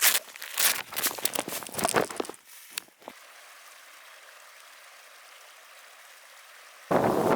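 Crinkling, rubbing handling noise as the camera is stowed, with about three seconds of irregular rustles and clicks, then a steady faint hiss. Near the end, wind buffeting the microphone cuts in suddenly and loudly.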